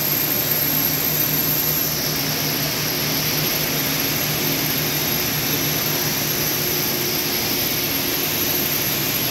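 Yarn winding machines running in a mill: a steady mechanical whir and hiss from the turning drums and spindles, with a low hum and a thin high-pitched whine.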